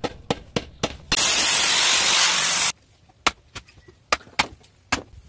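Hammer blows on a red-hot dao blade on a steel-rail anvil, then a loud steady steam hiss of about a second and a half that stops suddenly, as the hot blade is quenched. After it come a few scattered sharp knocks of a dao cutting green bamboo on a wooden block.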